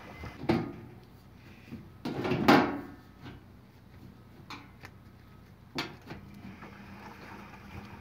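Washing machine top panel being set back on and slid into place: a knock, then a louder scraping clatter about two seconds in, and a couple of lighter knocks after it.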